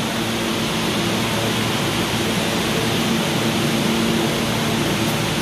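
R160A subway train standing at the platform with its doors open: the steady hum and rush of its running equipment, with a low held tone.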